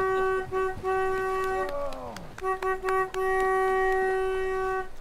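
Music from a single pitched wind-like instrument: short repeated notes on one pitch, a sliding fall in pitch about halfway through, then a few more notes and one long held note.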